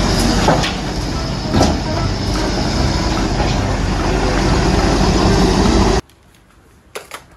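Hyundai wheeled excavator's diesel engine running loudly as the machine works, with a few knocks. It cuts off suddenly about six seconds in.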